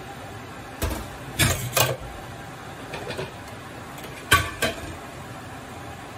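Kitchenware clattering on an electric hob: a non-stick frying pan and utensils give a string of sharp knocks and clinks. There is one about a second in, two close together soon after, faint ones around three seconds, and a loud pair near four and a half seconds, over a steady hiss.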